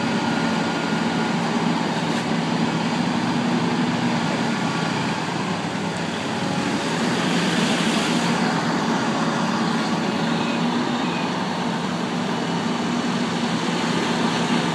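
Heavy diesel engine of the excavator or truck running steadily, a continuous low hum. A brief swell of hiss rises and fades about seven to eight seconds in.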